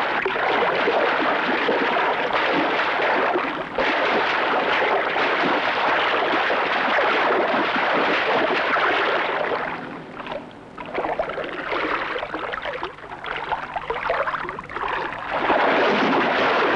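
Loud churning and splashing of water around a swimming animal being roped and hauled in beside a boat. The splashing drops away about ten seconds in, comes back in uneven bursts, then swells again near the end.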